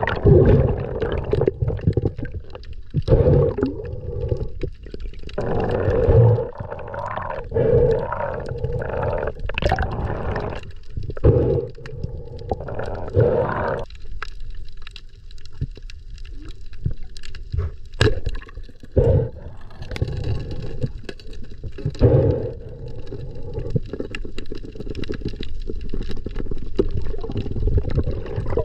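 Muffled underwater sound from an action camera in its waterproof housing: irregular gurgling and swishing of water, with a few sharp knocks.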